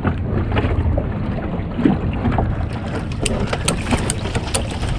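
Wind buffeting the microphone as a steady low rumble, with scattered light clicks and knocks that come more often in the second half.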